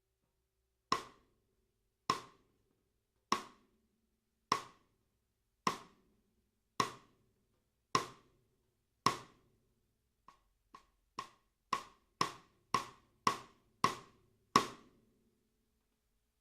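Gretsch Full Range 14x6.5" snare drum struck with single strokes: eight evenly spaced hits about a second apart, then a run of nine hits about twice a second that start soft and grow steadily louder.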